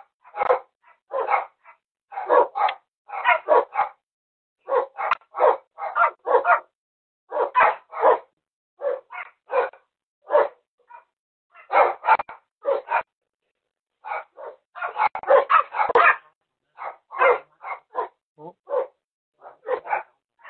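Dog barking over and over, in quick runs of short barks with brief pauses between, heard through a doorbell camera's microphone.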